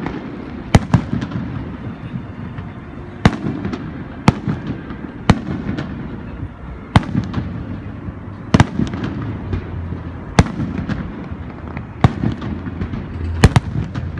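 Aerial firework shells bursting overhead: about nine sharp bangs, one every second or two, the last a quick double near the end, over a steady low rumble.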